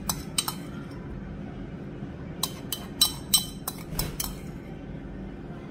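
Metal spoon clinking and scraping against a ceramic bowl as scallion-oil sauce is scraped out onto a plate: two light clinks at the start, then a quick run of about six ringing clinks between about two and a half and four seconds in.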